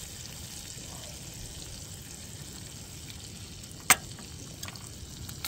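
Eggs frying in butter in a small pan on a portable gas camp stove, a steady sizzle, with one sharp click about four seconds in.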